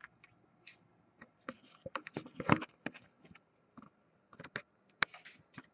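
Irregular sharp clicks and brief rustles of close handling, loudest about two and a half seconds in.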